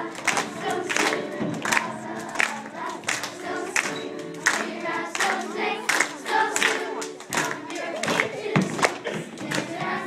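Dance music with singing, and sharp hand claps keeping the beat about once every two-thirds of a second.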